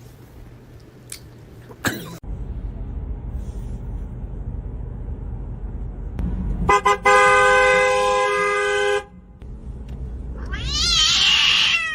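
A car horn gives a few quick toots and then one steady blast of about two seconds over a low rumble. Near the end a cat gives a loud, drawn-out meow.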